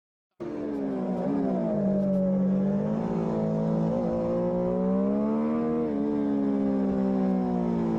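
On-board sound of a 600cc four-stroke Supersport racing motorcycle engine running hard at high revs. It cuts in abruptly just after the start, and its pitch drifts gently up and down, with a short dip about a second in.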